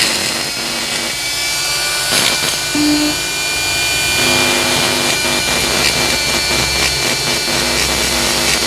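High-speed handheld die grinder (a pen-type "tuner") running with a steady high whine as its burr grinds the inside of an aluminium motorcycle cylinder head's port, porting it and smoothing away the rough cast surface.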